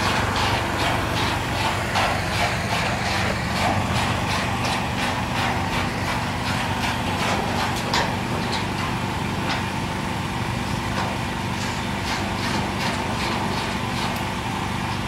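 Heavy machinery engine idling steadily. Over it come frequent sharp clinks and knocks of steel joists being handled and taken out of a steel frame, thickest in the first half.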